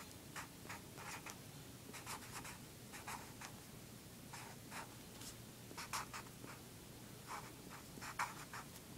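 Sharpie felt-tip marker writing on paper: a faint run of short strokes with brief pauses between them as an equation is written out.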